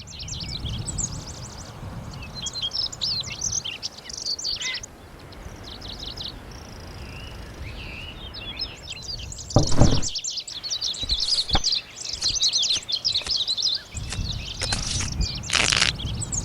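Wild birds chirping and calling in many short, high notes, busiest in the second half, over a low rumble, with a brief louder rushing burst about ten seconds in and again near the end.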